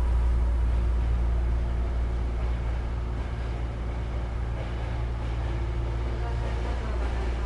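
Running sound of a Hankyu 9000 series electric train with Toshiba IGBT inverter drive: a steady low rumble of the wheels and running gear with faint steady hum tones, easing slightly in level after about a second.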